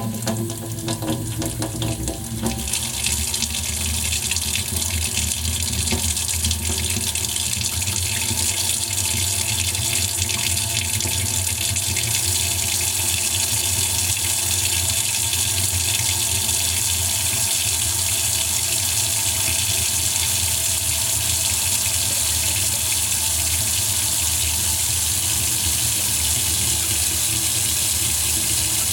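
Kitchen tap running steadily into a sink, the stream of water growing fuller a couple of seconds in and then holding an even splashing hiss.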